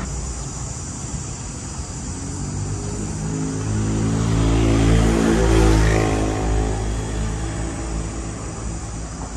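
A motor vehicle passing on the street: its engine hum swells to a peak about halfway through, then fades away.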